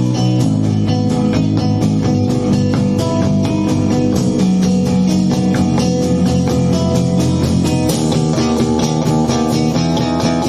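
Rock band rehearsing with guitar, bass guitar and drum kit playing together with a steady beat; the part changes about eight seconds in.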